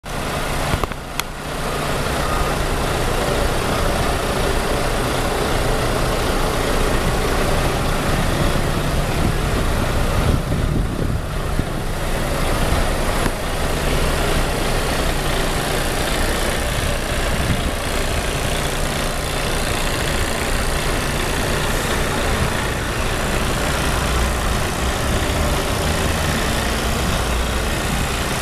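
Iveco Stralis tractor unit's diesel engine idling steadily.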